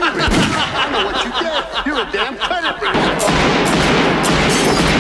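Sound-effect drop of gunfire played into the radio show: voices for about three seconds, then a dense, rapid volley of gunshots that cuts off suddenly.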